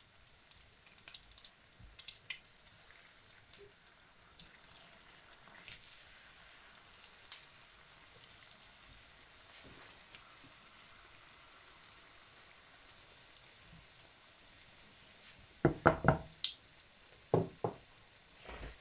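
Pirozhki frying in shallow oil in a pan: faint scattered pops of the hot oil, then a quick run of loud knocks about three-quarters of the way through and two more near the end as utensils strike the pan while the pies are turned.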